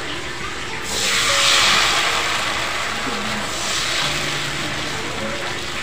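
Apem batter poured into a hot, oiled small wok, sizzling loudly about a second in and slowly fading, with a second, weaker sizzle about four seconds in.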